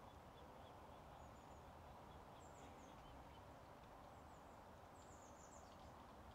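Near silence: faint open-air meadow ambience with a few faint, high, short bird chirps, the clearest a quick run of falling notes about five seconds in.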